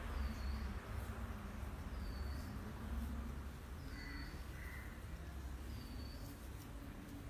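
Birds calling in the background: a short high call repeats about every two seconds, and two louder calls come about four seconds in, over a steady low hum.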